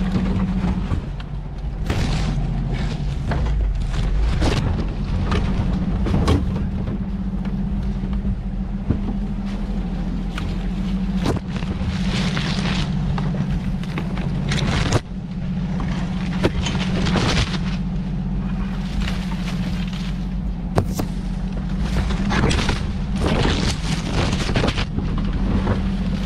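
Off-road truck engine running steadily at crawling speed on a rough trail, with frequent sharp knocks and thumps as the truck jolts over the ground.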